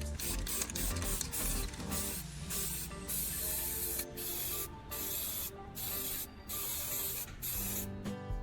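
Aerosol spray can spraying in a run of short bursts, each half a second to a second long, starting about two seconds in, over background music.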